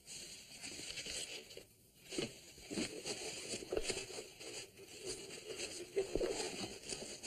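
Irregular rustling and crinkling of clothing and a top hat being handled, with scattered small clicks, as a magic trick is worked by hand.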